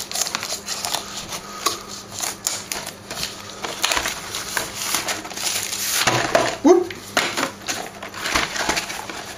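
Plastic shrink wrap on a cardboard prerelease box being slit with a knife and peeled off, crinkling and crackling in many short irregular bursts, along with the cardboard box being handled.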